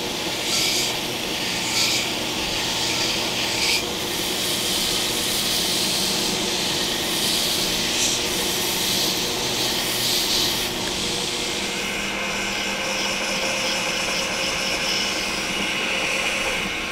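Belt grinder running with a small-wheel attachment, a knife handle assembly of titanium liners and scales pressed against the 120-grit belt to grind its edges flush. A steady motor hum sits under the rasp of the abrasive, which surges each time the piece is pressed on.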